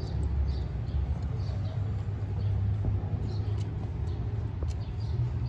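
Steady low background rumble with faint, short high-pitched chirps scattered through it.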